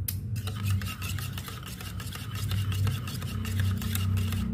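Metal spoon stirring a syrupy mix in a stainless steel mug, with quick repeated clinks and scrapes against the sides of the mug, over a low steady hum.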